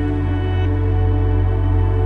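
Ambient background music: sustained chords over a steady low bass.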